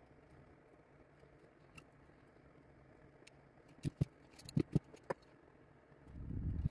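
Sped-up workbench handling noise: faint light clicks and knocks, clustered about four seconds in, as a circuit board is turned over and repositioned in a PCB holder, then a short muffled low rumble near the end.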